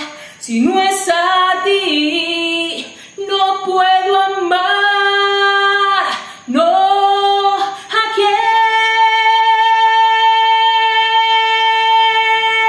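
A woman singing a Spanish-language ballad: a few short sung phrases with breaths between them, then one long held note of about four seconds that closes the song.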